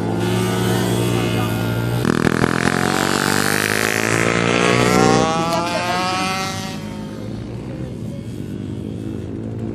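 Small pit bike engine racing past: its pitch rises as it revs toward the listener, is loudest about five seconds in, then drops and fades as it goes by. A steady engine note runs underneath until about five seconds in.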